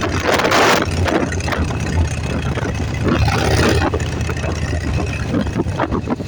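Motorcycle engine running with a steady low drone, with gusts of wind noise about half a second in and again about three seconds in.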